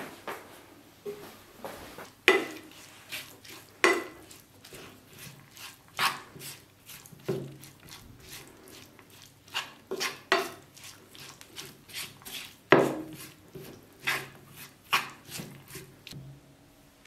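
A wooden spatula scraping and knocking against a nonstick frying pan as grated cheese, chopped olives and tomatoes are stirred together. The strokes come irregularly, every half second to two seconds, and stop shortly before the end.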